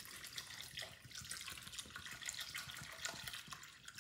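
Water poured in a thin, steady stream from a plastic gallon jug into a bowl that already holds water and sea moss, splashing quietly.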